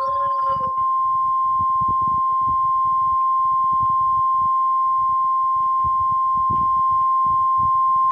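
Emergency alert attention signal: a single steady, high-pitched sine tone held for about eight seconds that cuts off suddenly at the end. It marks the start of an alert broadcast, with low irregular noise beneath it.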